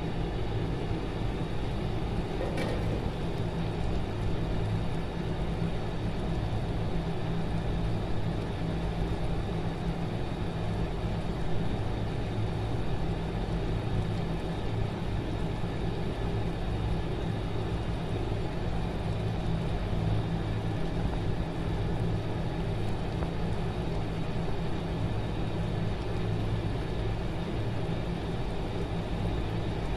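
Steady low hum and rumble, with one light metallic clink about two and a half seconds in as the aluminium pan lid is set aside.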